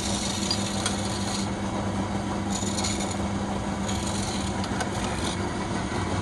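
Wood lathe running with a steady motor hum while a hand-held turning tool scrapes into the spinning wooden blank in short passes: during the first second or so, briefly around two and a half seconds in, and again from about four to five seconds in.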